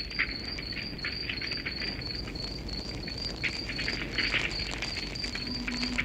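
A cricket chirping steadily, about four chirps a second, over the crackle of a burning wood fire. A low held tone comes in about five seconds in.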